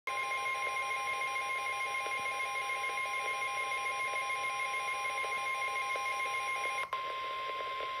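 Midland NOAA weather radio sounding its warning alert: a pulsing, alternating two-pitch beeping over the steady 1050 Hz NOAA Weather Radio warning alarm tone, signalling an incoming Special Marine Warning. About seven seconds in, the beeping stops with a click, and the steady alarm tone continues alone.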